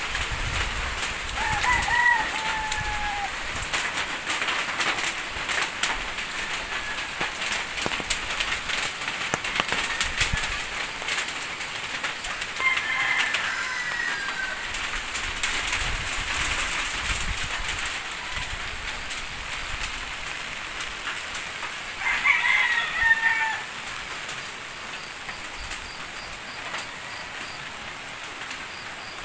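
Steady rain with scattered drips, and a rooster crowing three times: about two seconds in, near the middle, and loudest about three quarters of the way through.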